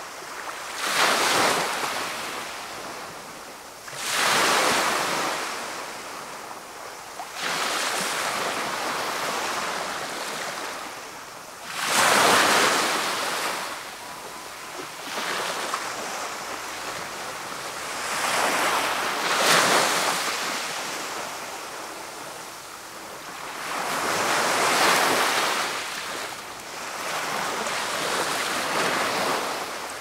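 Small waves breaking and washing up a shingle beach, each one swelling to a hiss and fading back, every few seconds. The surges near the middle of the stretch are the loudest.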